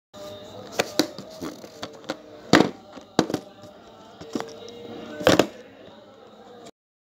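Paper inserts and a small cardboard box being handled: a run of sharp taps and rustles, the loudest about two and a half seconds in and again a little past five seconds, over faint background music.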